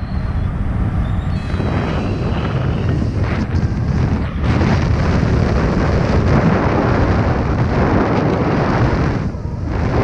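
Wind of flight buffeting the microphone during a paraglider flight: a loud, gusty rumble that eases briefly about four seconds in and again near the end.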